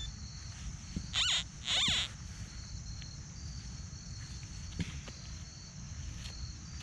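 A steady high chirring of insects, with two short louder sounds sweeping up and down in pitch about one and two seconds in, and faint scuffs of gloved hands working loose soil.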